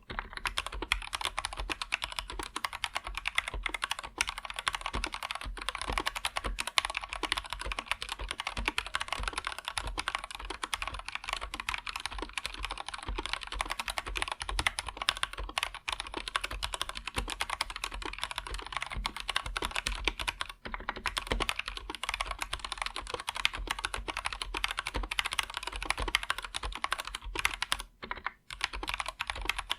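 Continuous fast typing on an Anne Pro 2 mechanical keyboard with linear Gateron Red switches: a dense stream of key clacks, pausing briefly twice near the end.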